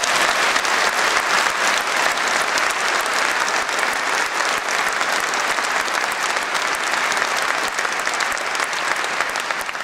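An audience applauding: many hands clapping in a dense, steady stream.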